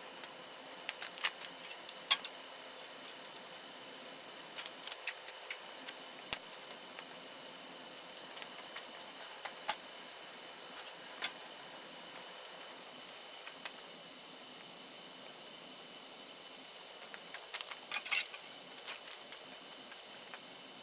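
Wood fire crackling in a stainless steel mesh-bottom fire pit: scattered sharp pops over a low hiss, with a quick cluster of pops near the end.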